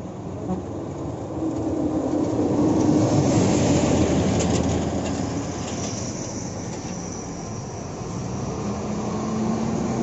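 Shacman dump truck driving past on a gravel haul road: diesel engine and tyres, building to its loudest about three seconds in, then easing off. A second truck draws near toward the end.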